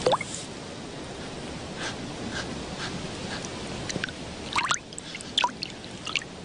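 Small water plops and drips, short pops that rise in pitch, over a steady soft hiss. One comes right at the start and a louder cluster of several comes near the end.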